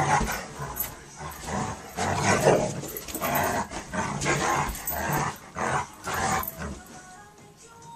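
Two dogs play-fighting, a grown dog and a puppy, with bursts of play-growling and snarling about once a second that stop about a second before the end. Background music runs underneath and is all that is left at the end.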